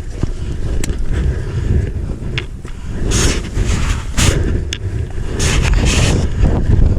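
Strong wind buffeting the microphone, a loud, constant low rumble, with several short hissing bursts between about three and six seconds in.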